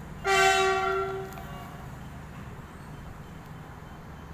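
A single horn blast, steady in pitch, lasting about a second and fading out.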